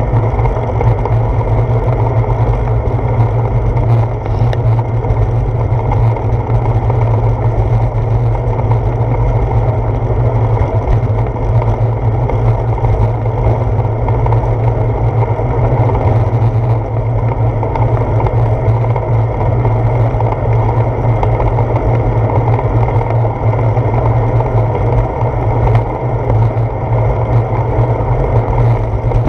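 Steady, deep wind rumble buffeting the microphone of a handlebar-mounted GoPro Hero 4 on a moving bicycle.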